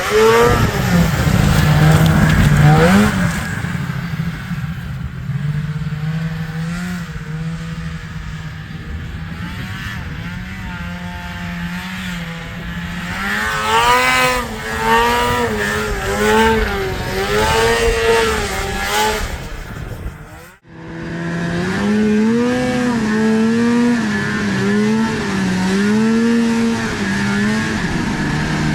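Snowmobile's Rotax 583 two-stroke twin, swapped into a 1981 Ski-Doo Blizzard 9500, revving up and down over and over as the throttle is worked. The sound drops out abruptly for a moment about two-thirds of the way through, then the engine is heard revving again.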